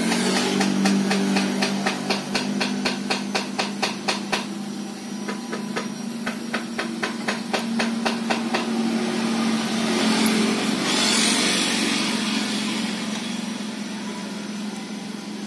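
Quick, regular metallic clicking from a hand tool working the fittings of a scooter's exhaust header pipe, about four clicks a second for the first few seconds, then sparser. A steady low hum runs underneath, and a short hiss comes about ten seconds in.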